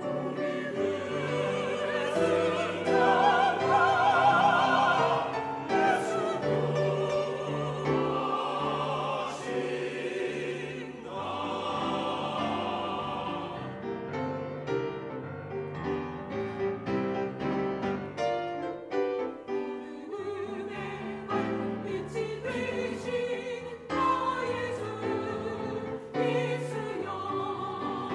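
Mixed church choir singing a hymn anthem in Korean with piano accompaniment, long held notes with vibrato in the first half, then shorter, more detached chords from about halfway.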